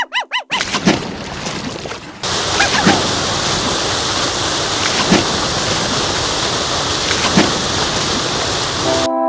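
Rushing, splashing water with a few louder splashes, stepping up in level about two seconds in and cutting off abruptly near the end. A brief warbling chirp comes right at the start.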